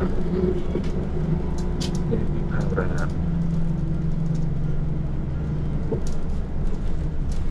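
Inside a moving city bus: a steady low drone of the bus running, with a few short rattles and knocks, the clearest about two seconds in and about six seconds in.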